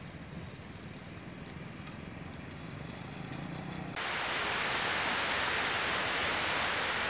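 A motorcycle engine runs faintly as a low steady hum. About four seconds in it gives way abruptly to a loud, steady rushing hiss in the open air.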